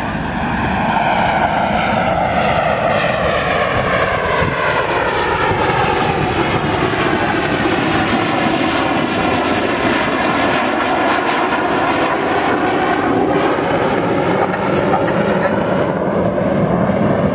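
Two BAE Hawk T2 jet trainers flying past slowly in close formation in landing configuration, a steady loud jet roar. The rushing sound's bands sweep down in pitch and then back up as the pair pass by.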